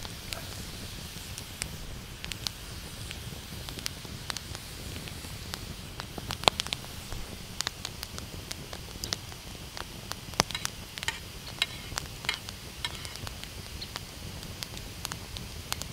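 Scattered sharp clicks and crackles: a spoon clinking and scraping in a metal mess tin, with a campfire crackling. A cluster of ringing metallic clinks comes about two-thirds of the way in.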